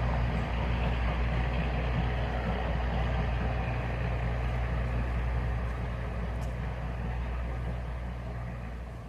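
Diesel shunting locomotive's engine running at a steady idle-like pitch, growing fainter over the last few seconds.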